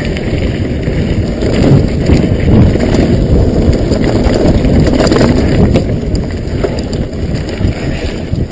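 Mountain bike ridden fast over a rough dirt trail, heard through a sunglasses camera's built-in microphone: heavy wind buffeting on the microphone with tyre rumble and rattling knocks from the bike over the bumps.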